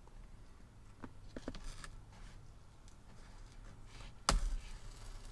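Razor blade cutting along a Velcro strip stuck on a truck's glove box: a few faint scratchy ticks, then one sharp click about four seconds in.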